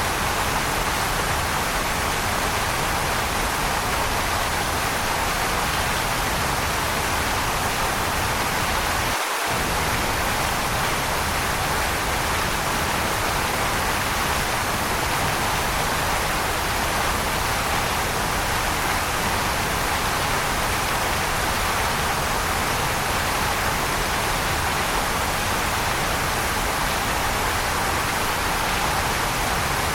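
Waterfall: a steady, even rush of falling water, strongest in the middle and upper range, with the low rumble dropping out for a moment about nine seconds in.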